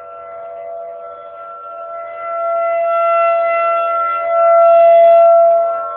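Outdoor tornado warning siren sounding loud and steady during its routine monthly test: a chord of several tones held at one pitch, growing louder about two seconds in and again, loudest, around four and a half seconds in before easing back.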